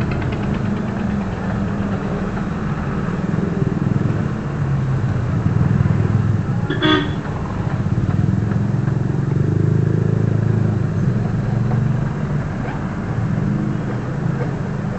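A vehicle engine running steadily, with one short toot about seven seconds in.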